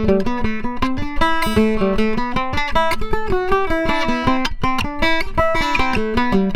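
Eastman MDO305 octave mandolin played through a JJB Prestige 220 piezo pickup: a fast run of single notes picked with a thick flatpick, several notes a second, each ringing briefly.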